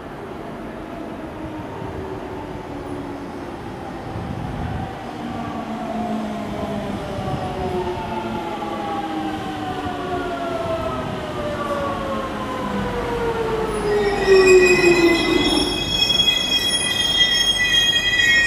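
JR Central 373 series electric train pulling into the platform and braking to a stop: its motor whine falls steadily in pitch as it slows, growing louder as it nears. About three quarters of the way through, a high brake squeal joins in and rings to the stop.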